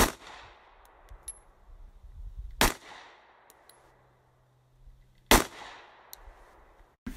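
Three shots from a semi-automatic handgun, about two and a half seconds apart, each a sharp crack followed by a short echoing tail.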